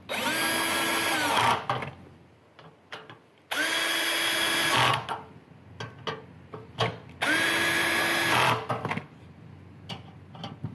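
Cordless drill/driver with a T25 bit driving finger-started machine bolts snug into a steel fire-pit corner bracket. It makes three short runs of about a second and a half, each whine spinning up and winding down, with a few light clicks between runs.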